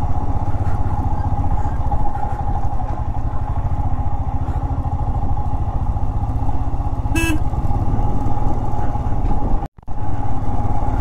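Motorcycle engine running steadily under way, with a short beep about seven seconds in. The sound drops out for a split second near the end.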